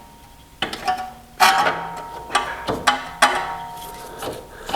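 Several sharp metallic knocks at uneven intervals, each leaving a ringing tone, as the new front control arm is forced into place on the suspension.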